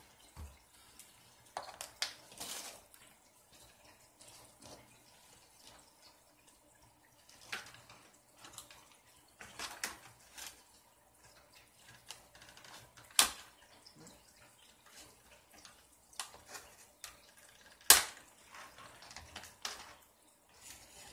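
Scattered clicks, taps and clatter of small plastic and metal parts and tools being handled while an RC car's rear end is taken apart, with two sharp knocks about 13 and 18 seconds in.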